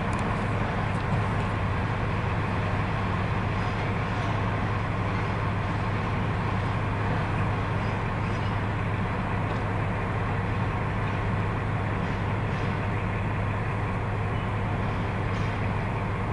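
Freight train wagons rolling slowly past, a steady low rumble with a constant hum.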